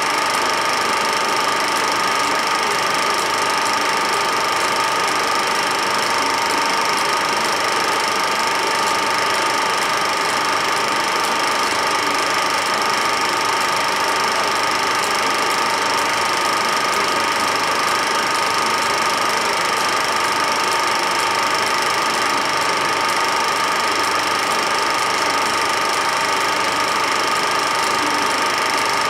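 Film projector running steadily, an even mechanical whirr and hiss with a constant whine over it.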